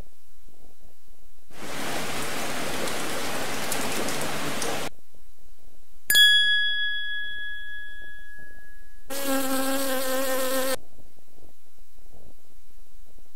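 A run of short PowerPoint sound-effect clips played one after another: a hiss of noise lasting about three seconds, then a single bell-like ding that rings out for a couple of seconds, then a short electric buzz about nine seconds in.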